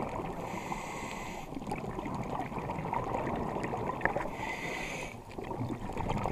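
Underwater sound picked up by a diver's camera: a steady crackling water noise, with two hissing breaths of about a second each from a scuba regulator.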